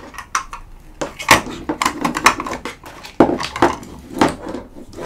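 Plastic toy playset pieces clacking and knocking as they are handled and fitted together: a run of separate sharp clacks, most of them after the first second.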